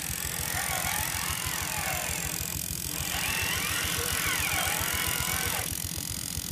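A radio-controlled 6x6 truck's electric drivetrain whirring steadily as it drives, with a fast low flutter underneath, under background music whose wavering melody drops out twice.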